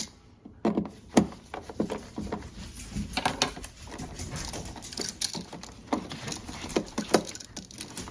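Irregular small clicks, taps and scrapes of a screwdriver and hands working a light switch into its wall box and driving its mounting screws.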